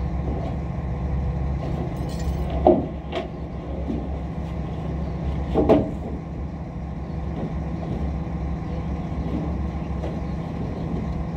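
Truck engine running steadily at idle, with two brief louder noises, the first about two and a half seconds in and the second about three seconds later.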